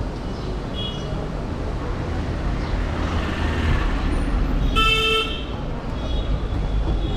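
Steady street traffic rumble, with one short, loud vehicle horn honk about five seconds in and a fainter toot near the start.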